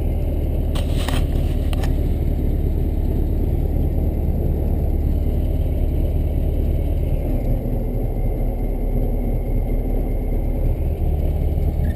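1965 Volkswagen Beetle's air-cooled flat-four engine running steadily as the car is driven. There are a few light clicks about a second in, and the engine note changes about seven seconds in.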